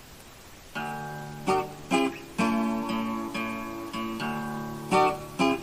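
Acoustic guitar intro: strummed chords begin about three-quarters of a second in, after a moment of faint hiss.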